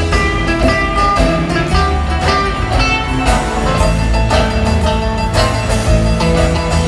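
Live electric blues band playing in a theatre: electric guitars over bass guitar and a drum kit, with a steady beat and changing held guitar notes.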